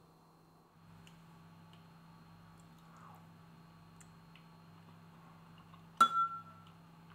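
A single sharp clink of kitchenware about six seconds in, ringing briefly, over a faint steady low hum and a few light ticks.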